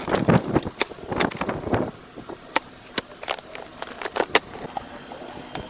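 Rustling for about the first two seconds, then scattered sharp clicks and light knocks, the sound of yard debris and tools being handled during cleanup; no engine is running.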